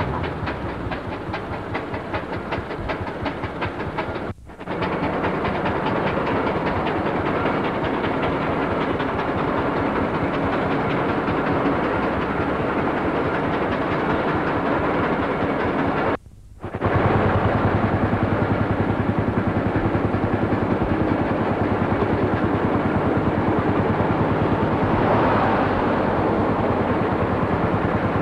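Engine running with a fast, steady rhythmic beat. The sound drops out briefly twice, at about four and sixteen seconds in, and is louder and deeper after the second break.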